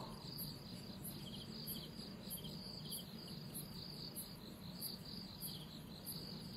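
Faint chorus of crickets chirping: a high-pitched pulse about twice a second over a steady high trill, with short triple chirps now and then.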